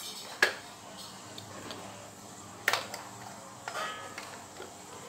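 Two sharp plastic clicks about two seconds apart as an LED rope light's connector and power adapter plug are fitted together and pushed into a mains socket, with a little handling noise after.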